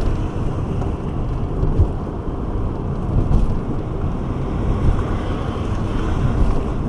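Steady low rumble of an RV driving at highway speed, engine and tyre noise mixed with wind noise.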